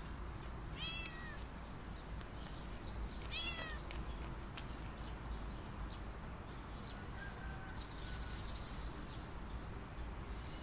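Domestic cat meowing: two short meows about two and a half seconds apart.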